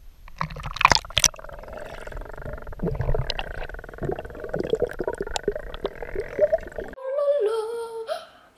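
Splashing as a swimmer and the camera plunge into a pool, then the muffled, gurgling wash of sound heard underwater. About seven seconds in it cuts to a voice humming a tune.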